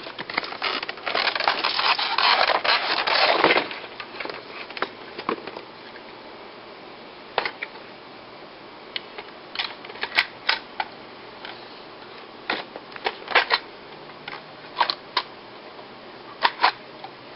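M324 airsoft sniper rifle being handled, its parts rattling and rubbing for the first few seconds, then a series of scattered sharp clicks and knocks.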